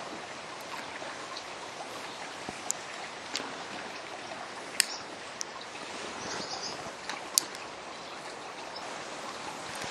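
Steady rushing background noise with a few sharp clicks scattered through it.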